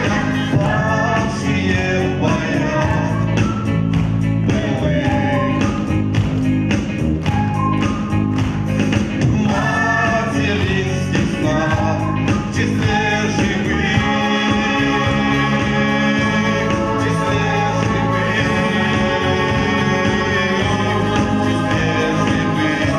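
A song performed with singing over instrumental accompaniment. About fourteen seconds in, the voice drops out and held instrumental chords carry on.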